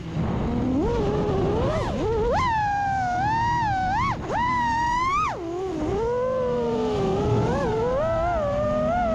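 FPV freestyle quadcopter's brushless motors and propellers whining, the pitch jumping up and falling back with each burst of throttle. Wind rumbles underneath on the onboard microphone.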